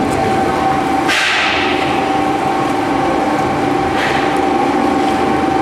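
DSSH-LTI-30 double-shaft shredder, driven by two 30 kW electric motors, running almost empty with its two knife shafts turning: a steady drone with a high whine. A sudden crunch comes about a second in and a smaller one about four seconds in, as the last scraps of cardboard pass through the knives.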